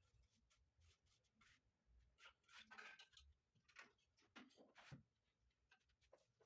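Near silence with faint, scattered scuffs, scrapes and light knocks of a worker moving about on a gritty floor in sandals, a few of them a little louder about halfway through and near the end.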